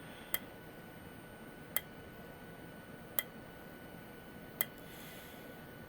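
Simplex 4904-9137 remote fire alarm strobe flashing, giving a faint sharp click with each flash about every one and a half seconds, four times, over a faint steady high tone.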